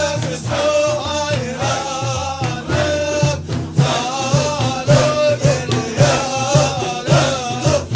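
Naqshbandi Sufi zikr: voices chanting a melodic line over a steady low pulse, about two beats a second.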